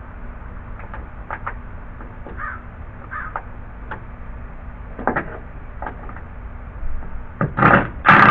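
Light scrapes and clicks of hand work on deck screws, with a crow cawing a few short times. Near the end a loud rushing burst of noise starts.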